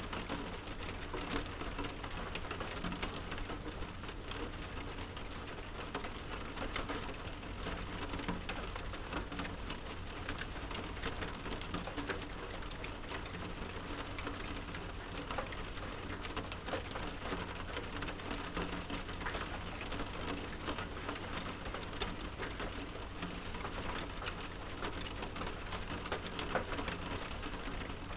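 Steady rain pattering on a window pane, with many small irregular drop ticks and a low steady rumble underneath.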